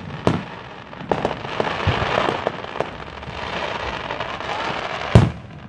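Aerial fireworks display: a shell bursts with a sharp boom just after the start and another near the end. In between, a spell of crackling with scattered pops.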